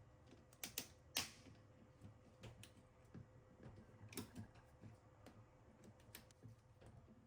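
Faint, irregular clicks and taps from handling the washer's drain pump and its hose clamps, with the sharpest knock about a second in.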